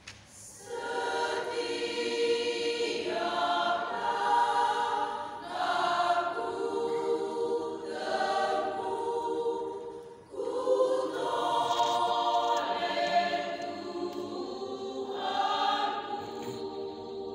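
Women's choir singing a hymn in Indonesian in sustained chords, coming in about a second in, with a brief break between phrases about ten seconds in.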